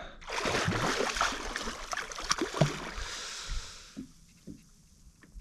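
Water splashing and churning beside a kayak, where a small hooked sevengill shark is at the surface, for about four seconds; it then dies down, leaving a few small knocks.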